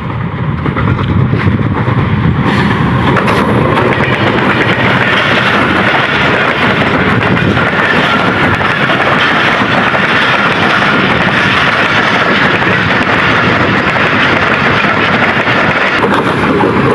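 Train passing close by on the track: a loud, steady rolling rush that builds in the first second or so and starts to fall away about sixteen seconds in.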